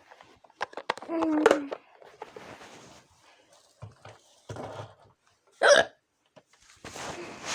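A girl hiccuping: one hiccup about a second in and a sharper, louder one near six seconds in, with soft rustling in between.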